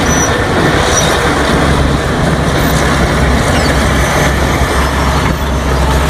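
Large crawler bulldozer's diesel engine running steadily under load as the machine pushes a heap of dark material with its blade: a heavy, even low drone under a noisy rumble.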